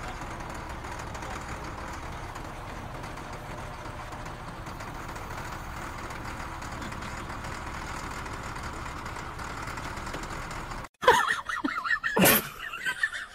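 A motor grader's diesel engine runs steadily at idle. About eleven seconds in it cuts off abruptly to louder, irregular sounds, one of them sharp and loud.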